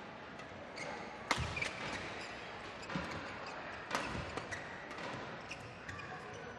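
Badminton rally: rackets striking the shuttlecock in sharp cracks, the hardest a little over a second in and again about four seconds in, with lighter hits and players' footwork on the court in between.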